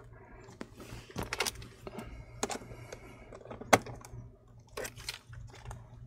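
Scattered light clicks and taps as a laptop's metal hinge and internal parts are handled and worked with a small tool. The sharpest click comes a little under four seconds in, over a low steady hum.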